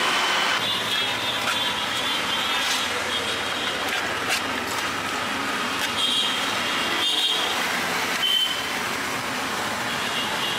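Steady din of busy street traffic, with a few short high tones over it around six and eight seconds in.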